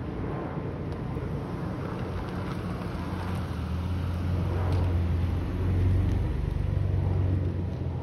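Jet airliner overhead: a low, steady engine rumble that swells to its loudest about six seconds in.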